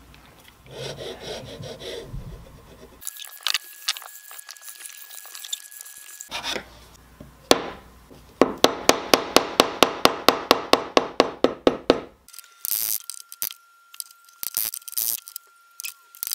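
Hand filing or sanding strokes on a maple guitar neck: a fast, even back-and-forth rasp of about seven strokes a second, lasting some three and a half seconds in the middle and the loudest sound here. Around it are shorter spells of scraping and rubbing, and near the end a few sharp clicks.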